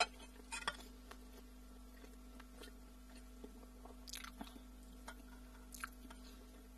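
A person chewing food close to the microphone, faint, with a few short soft clicks and smacks around half a second in, about four seconds in and near six seconds. A faint steady hum sits underneath.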